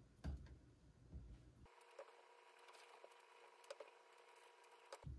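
Near silence, with a few faint soft clicks from knife work at a wooden cutting board.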